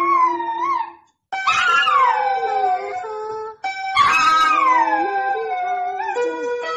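A poodle howling along in long, drawn-out howls that slide down in pitch, broken by short pauses about a second in and just past the middle. Under the howls, the notes its front paws hold down on a toy electronic keyboard sound as steady tones.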